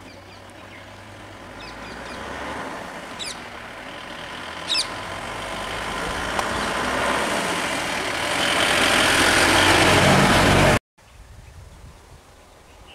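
Road traffic passing close: vehicle engines and tyres grow steadily louder as they approach, then cut off abruptly about two seconds before the end, leaving quieter outdoor background. Two short high chirps sound a few seconds in.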